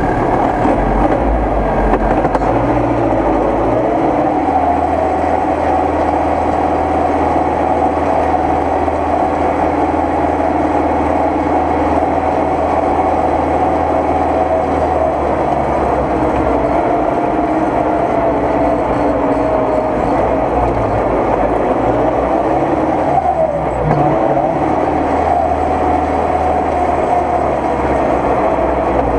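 Tractor engine running steadily under load, heard from inside the cab, with a low drone and the engine note wavering a little as it is driven. About two-thirds of the way through, the note briefly drops and picks up again.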